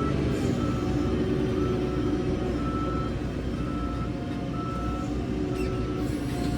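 Diesel engine of a JCB 3CX backhoe loader running, with its reversing alarm sounding a steady single-tone beep about once a second as the machine backs up.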